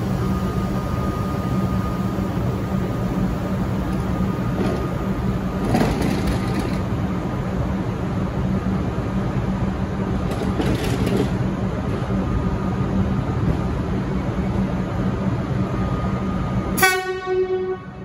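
V/Line VLocity diesel railcars standing at the platform, their engines and equipment running in a steady drone with a constant hum and a thin high whine. About a second before the end the train gives a short, loud horn blast.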